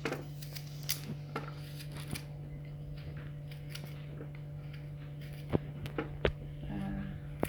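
Kitchen knife slicing fresh root into small pieces on a cutting board: scattered sharp taps of the blade striking the board. A steady low hum runs underneath.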